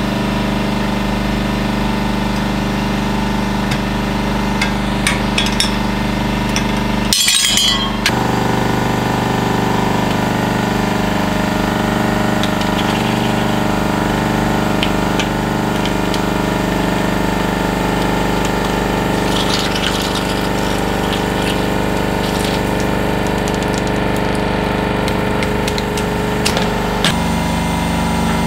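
Hydraulic press running with a steady hum while its ram crushes objects one after another, with clicks and cracks as they give way; the loudest crunch comes about seven seconds in.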